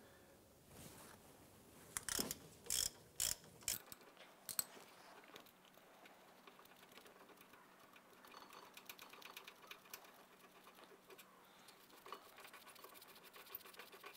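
Ratchet with a 17 mm socket loosening a brake caliper bracket bolt: several loud, separate clicks in the first five seconds, then quieter fine clicking as the loosened bolt is backed out.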